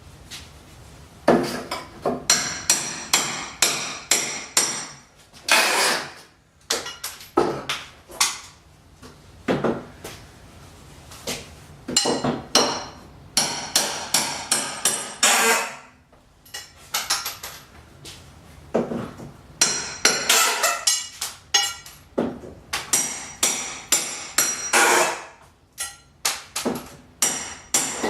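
Hammer driving nails: runs of sharp metallic blows, several a second, broken by short pauses, with a few longer scraping sounds among them.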